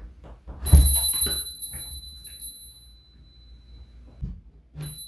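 Magnetic wind-chime doorbell struck as the door moves: a knock, then a bright, high metal ring that fades over about three seconds. A dull thump follows, and the chime rings again near the end.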